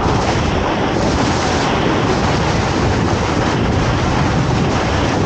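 Loud, steady rush of big-water river rapids around a whitewater kayak running them, with water splashing close by.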